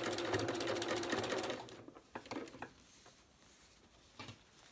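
Janome electric sewing machine stitching at speed: a fast, even needle clatter over the motor's hum, stopping about a second and a half in. A few faint clicks follow.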